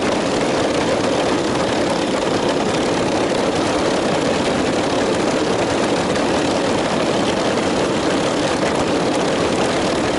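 Motors of a LEGO Technic amphibious RC tracked vehicle running steadily, a dense even noise, picked up by an action camera mounted on the vehicle.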